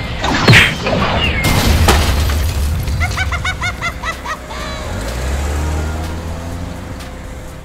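Cartoon sound effects of something being smashed down: a loud crash about half a second in and a second crash with shattering near two seconds in, then a quick run of short rising chirps, then a low engine drone as the cartoon excavator moves off, over background music.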